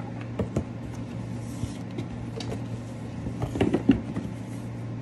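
Light clicks and rustles of a paper card and packaging being handled, with a cluster of small knocks about three and a half seconds in, over a steady low hum.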